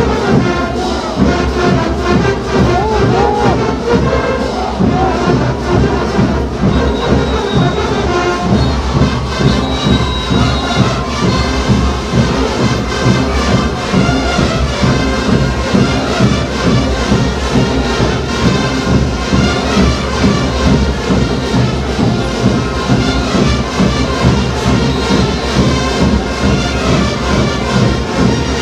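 Andean folk dance music from Puno with a steady beat, played by a band.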